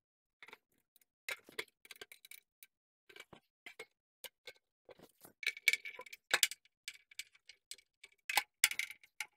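Hands working a brass drain valve on a lathe's coolant reservoir: irregular small metallic clicks and ticks, with louder clusters of clinks about six seconds in and again near the end.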